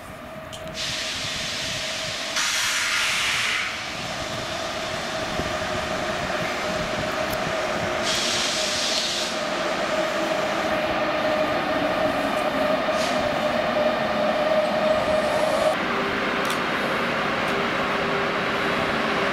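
Electric locomotive hauling an intercity passenger train as it slows into a platform: a steady whine that sinks slightly in pitch and cuts off about 16 seconds in, giving way to a lower steady hum. Short bursts of hiss come about a second in and again about eight seconds in.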